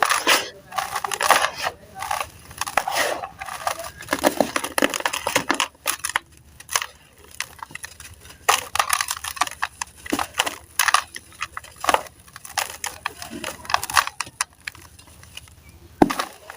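Crumbly sand-cement slabs being crushed by hand in a tub: gritty crunching and crackling in irregular bursts of many small breaks, with short pauses between handfuls.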